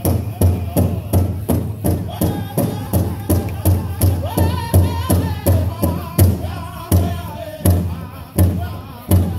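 Powwow drum beaten in a steady fast beat for a jingle dress song, with the singers' voices over it. About six seconds in, the beat slows to heavier, more widely spaced strikes.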